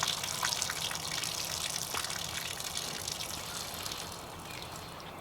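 Water gushing and splattering with a crackly hiss, tapering off after about four seconds.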